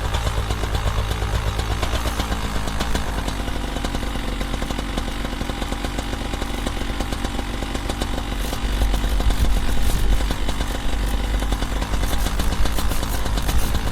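Paramotor engine and propeller running steadily, getting louder and deeper about eight and a half seconds in as the throttle is opened further.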